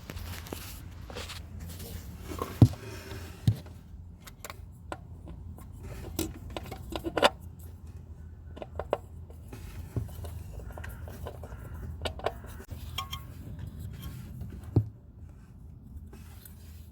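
Scattered metallic clinks and knocks of hands and tools at work under a car, fitting a new oil filter, over a low steady hum. The sharpest knocks come about two and a half seconds in, a second later, and near the end.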